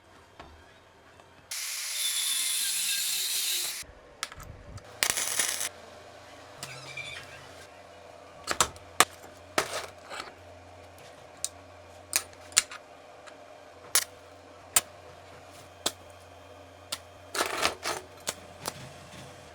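A loud hiss lasting about two seconds, a shorter hiss a little later, then scattered sharp clicks and knocks, the sound of tools and small metal parts being handled.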